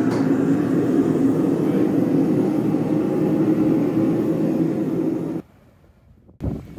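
A loud, steady mechanical roar of workshop machinery that cuts off suddenly about five seconds in, followed by a brief low thump near the end.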